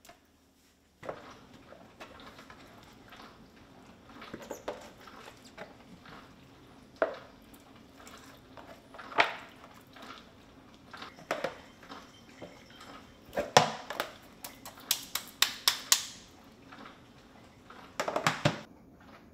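A whole raw chicken being cut up with a kitchen knife on a plastic cutting board: scattered knocks and clicks of the knife, board and handling. There is a quick run of sharp clicks about two-thirds through, and a burst of knocks near the end as the pieces go into a plastic tub.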